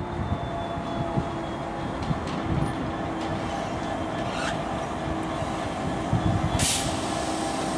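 Class 66 diesel-electric freight locomotive approaching at the head of a freight train, its engine running steadily under a rumble of wheels on rail. A short burst of hiss near the end.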